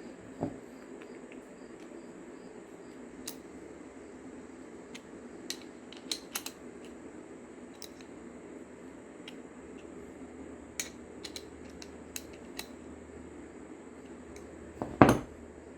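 Scattered light clicks and taps of small parts being handled, over a steady low hum, with one louder knock near the end.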